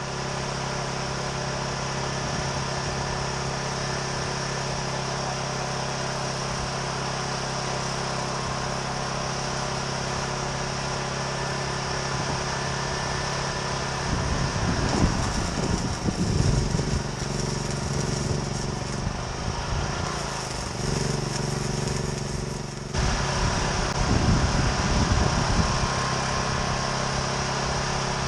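Small engine running steadily. In the second half come irregular louder low knocks and rumbles, with a brief hissing layer that cuts off suddenly about 23 seconds in.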